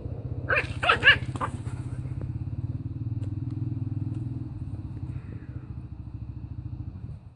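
A puppy yaps about four times in quick succession around half a second in, over a steady low pulsing rumble that cuts off suddenly near the end.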